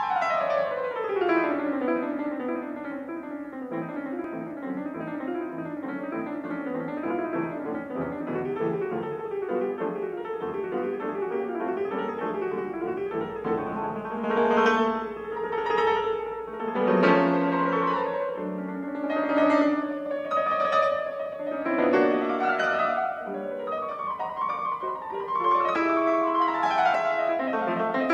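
Background piano music: it opens with a falling run of notes, goes on in quick flowing notes, and from about halfway moves into fuller, louder chords.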